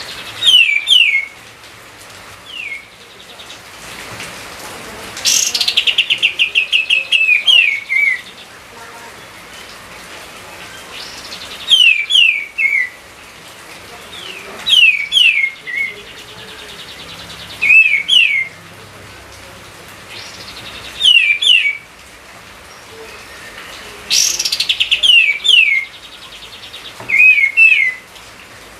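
A songbird singing a short phrase of quick downward-sweeping whistled notes, repeated about every three seconds. Twice the phrase opens with a rapid stuttering trill.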